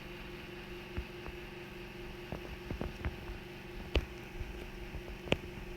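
A steady low electrical hum with faint hiss, and a few short, faint clicks scattered through it.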